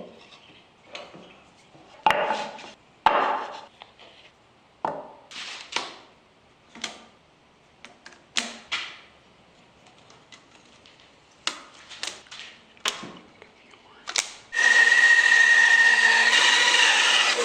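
Small wooden pieces knocked, set down and shuffled on a bench in scattered clacks and scrapes. About fourteen seconds in, a power tool starts suddenly and runs steadily with a high whine.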